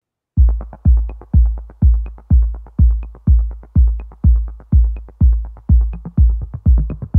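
Electronic intro music: a steady kick-drum beat at about two kicks a second with quick hi-hat ticks between them, starting after a brief silence.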